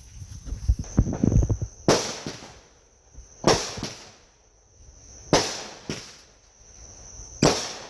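Fireworks going off: four sharp bangs about two seconds apart, each trailing off, over a steady high chirring of crickets.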